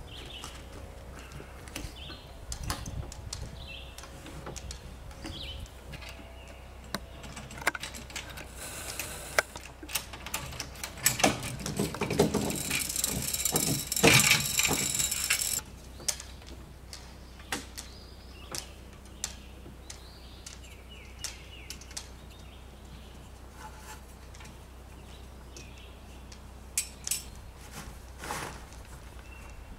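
Sailboat rigging being handled: scattered clicks and clinks of metal fittings on the mast and boom. There is a few-second stretch of louder rustling and scraping starting about eleven seconds in.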